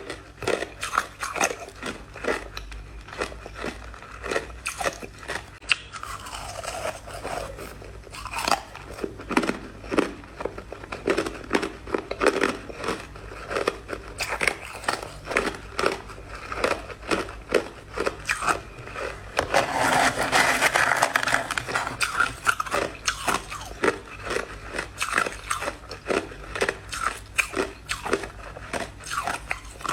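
Crushed ice being bitten and chewed, with quick irregular crunches several times a second. About two-thirds of the way in there is a louder, denser stretch of crunching lasting about two seconds.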